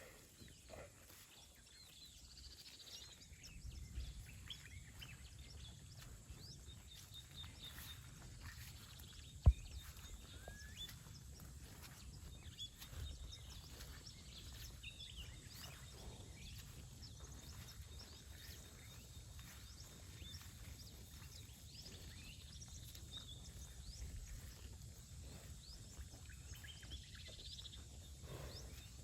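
Faint outdoor ambience: a low steady rumble with scattered small bird chirps, and one sharp click about nine seconds in.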